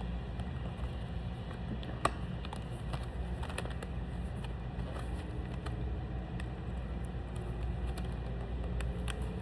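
Scattered small clicks and taps of objects being handled, with one sharper click about two seconds in, over a steady low hum.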